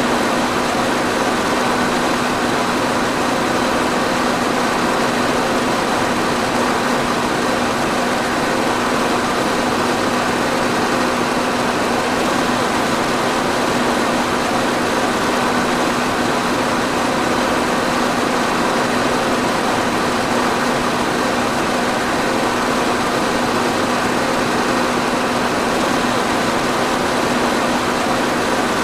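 Electric fan running steadily: a constant rush of air with a steady motor hum beneath it.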